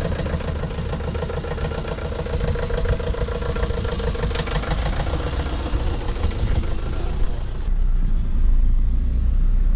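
Motor vehicle engine running on the move, a steady hum with road noise; about eight seconds in a deeper rumble grows louder.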